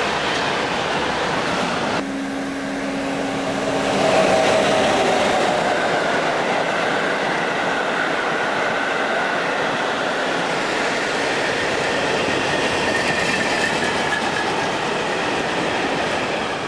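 Freight train of container wagons rolling past at speed: a steady rumble of wheels on rails with some clickety-clack and faint high squealing tones. The sound changes abruptly about two seconds in and grows louder about four seconds in.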